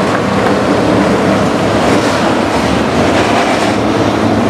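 Street stock race cars' engines running at speed on the track, a loud continuous drone with no break.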